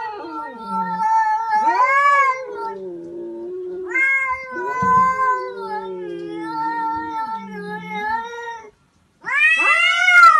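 Two cats yowling at each other in a standoff: long, drawn-out caterwauls that waver up and down in pitch, with a short break about nine seconds in and a louder, rising yowl near the end.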